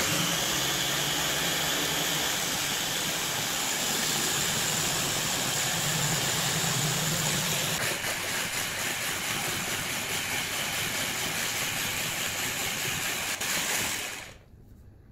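Ninja press-top blender motor running steadily, blending runny crepe batter, then cutting off near the end.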